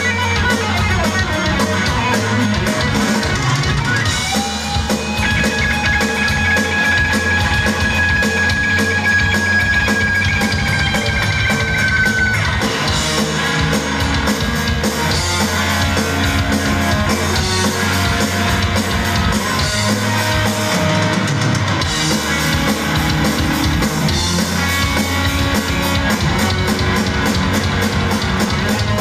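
Live rock band playing: fast drumming on a drum kit under distorted electric guitar and bass. A long high note is held from about five seconds in and bends down as it ends, around twelve seconds in.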